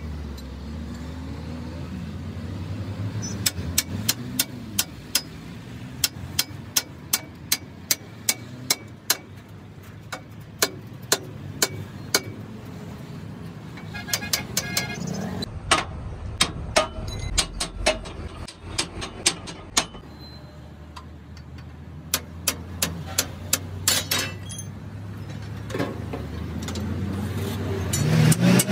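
Hand tools tapping on the truck's steel axle housing: sharp metallic taps at irregular intervals, about one or two a second, some ringing briefly, over a low steady hum.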